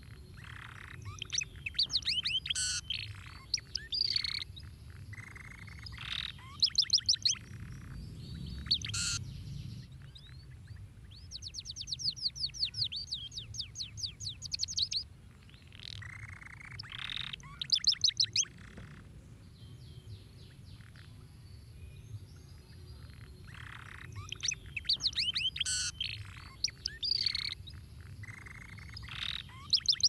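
Domestic canary singing in phrases of quick chirps and sweeping notes every few seconds, with pauses between them and a fast trill of rapidly repeated notes lasting several seconds about midway. A steady low rumble runs underneath.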